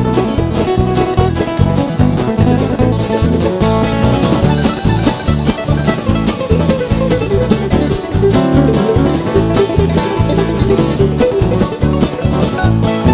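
Instrumental bluegrass music: banjo and guitar picking over a steady bass beat, with no singing.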